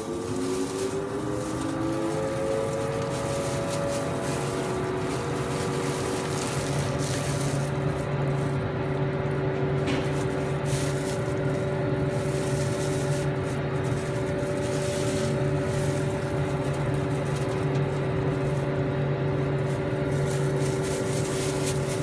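Industrial microwave batch oven running: its motors and fans spin up with a rising whine over the first few seconds, then run on with a steady hum.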